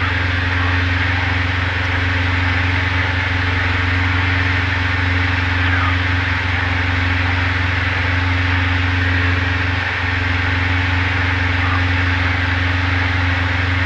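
Diamond DA20's four-cylinder piston engine and propeller droning steadily in flight, heard from inside the small cockpit with a constant rush of airflow noise.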